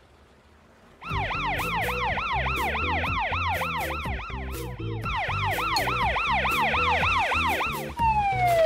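Cartoon police car siren wailing fast, about three to four rising-and-falling yelps a second, starting about a second in over background music with a steady beat. It breaks off briefly midway and gives way to a single falling tone near the end.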